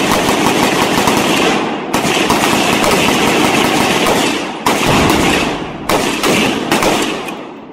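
Volley of rapid, overlapping gunfire from several shooters firing at once, with a few heavier booms (Tannerite targets detonating) at about 2, 5 and 6 seconds in. The firing thins out and dies away near the end.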